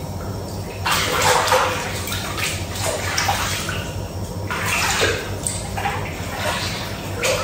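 Bath water sloshing and splashing as a bather moves in a deep tub. It comes in bursts about a second in, around five seconds in and briefly near the end, over a steady low hum.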